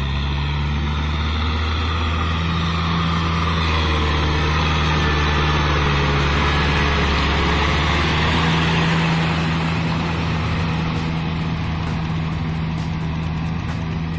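Kubota M6040SU tractor's four-cylinder diesel engine running steadily under load while its rear rotary tiller churns through wet paddy mud. It grows louder as the tractor passes close, about halfway through, then eases off as it moves away.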